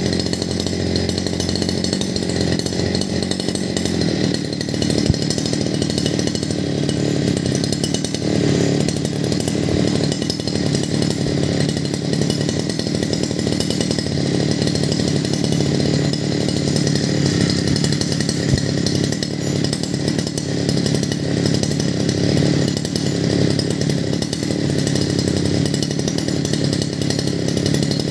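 Sun-Max 52cc two-stroke petrol brush cutter engine running steadily, picking up slightly in pitch about four seconds in.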